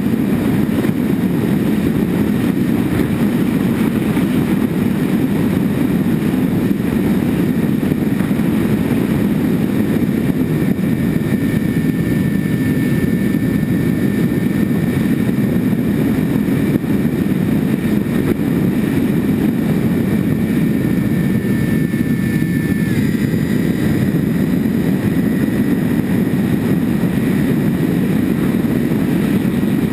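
An RC model plane's twin motors and propellers whine steadily in flight, with heavy wind rush on the airframe-mounted camera. The two motor tones shift slightly in pitch about three quarters of the way through.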